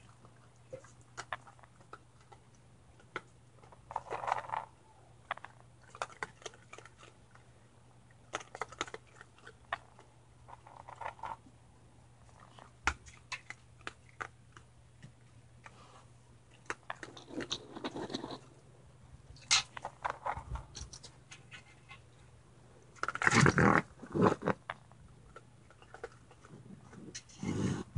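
Raccoon kits eating food off a concrete patio: scattered crunching and chewing with short clicks. A louder, noisier burst comes near the end.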